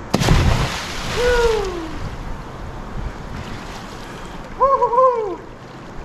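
A person jumping into a river with a splash right at the start, followed by two short shouts or whoops, one about a second in and one near the end.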